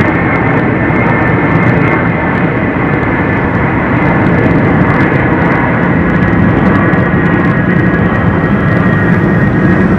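Jet engines of a low-flying, high-wing, T-tailed twin-jet military transport aircraft passing overhead: a loud, steady roar with a whine on top.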